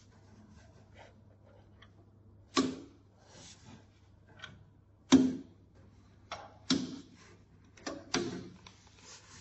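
A series of sharp clicks and knocks, about six, the loudest about five seconds in, as hands work the spring-loaded pinch roller levers and the media at the printer's rear feed, over a faint steady low hum.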